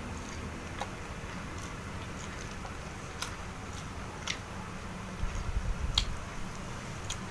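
A person eating close to the microphone: chewing, with scattered sharp mouth clicks and smacks and a cluster of louder ones about five to six seconds in.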